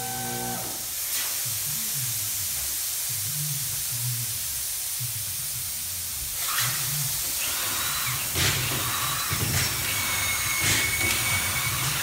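Tire-shop air-tool noise during a wheel change: a steady hiss of compressed air under a low rumble, then from about six seconds in short rattling bursts and knocks of pneumatic tools at the wheels.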